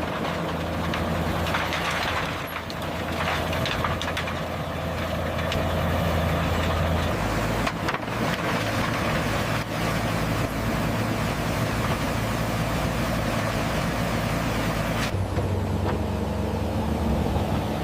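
Heavy diesel engines of road-paving machinery, a dump truck and an asphalt paver, running steadily with a low engine hum under constant mechanical noise. The sound changes abruptly about fifteen seconds in.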